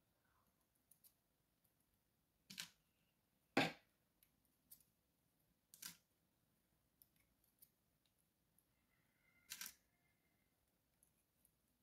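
Sparse small metallic clicks and ticks from the sliders of an Evva 3KS lock being worked out of the core with tweezers and handled. There are four sharper clicks among faint ticks, the loudest about three and a half seconds in.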